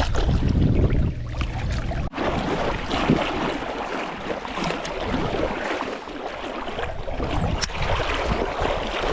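Wind buffeting the microphone in low rumbles over the hiss of moving river water. The wind rumble eases off for several seconds in the middle, leaving mostly the water's hiss, then picks up again near the end.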